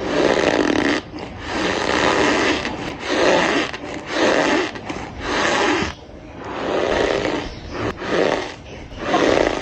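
Cornstarch squeezed and crushed, squeaking and crunching in about eight drawn-out squeezes of roughly a second each.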